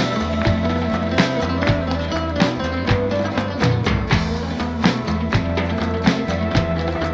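Background music with a steady beat over a low bass line.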